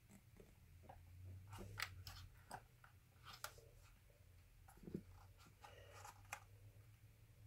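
Faint, irregular clicks and scrapes of a screwdriver turning a small screw in the plastic steering-servo mount of a Traxxas E-Revo RC truck, as the mounting screws are being started.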